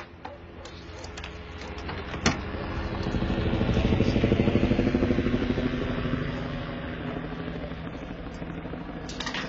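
A car engine running outside, growing louder to a peak about four seconds in and then fading. Two sharp clicks, near the start and about two seconds in, are the front door being unlocked and opened.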